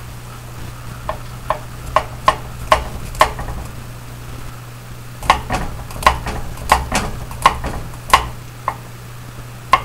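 Chef's knife slicing garlic cloves on a wooden cutting board: sharp knocks of the blade hitting the board. About six come a second or so in, then a pause, then a quicker run of about nine, and one more near the end.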